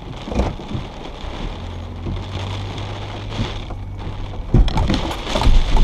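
A vehicle's engine running with a steady low hum under wind and rain noise, with a thump about half a second in and a run of louder knocks and rumbles near the end.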